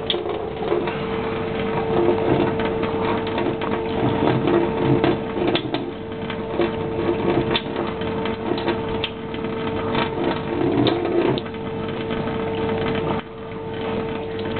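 Kitchen tap running, its stream splashing over a Persian cat's head into a stainless-steel sink, with a steady tone under the rush and scattered clicks as the cat laps at the water. The sound drops in level about a second before the end.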